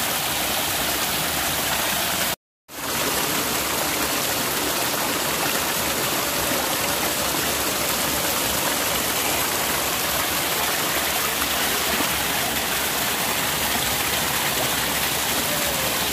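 Steady rush of flowing water, broken by a brief dropout to total silence about two and a half seconds in.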